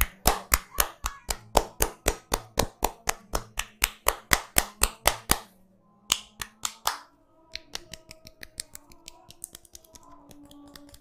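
Rapid, rhythmic hand strikes of a barber's head massage: sharp slaps or claps of the hands, about four or five a second, for about five seconds. Then softer, quicker taps over faint background music.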